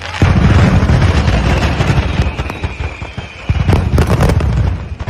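A truckload of display fireworks going off by accident: a dense, rapid run of cracks and bangs over a deep rumble, surging again about three and a half seconds in. A firework whistle sounds through the middle for a couple of seconds.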